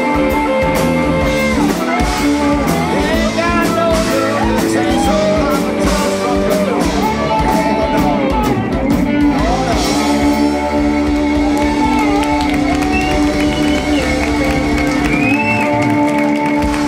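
Live rock band playing: electric guitars, bass, keyboard and drums together, with a lead line bending in pitch over held chords.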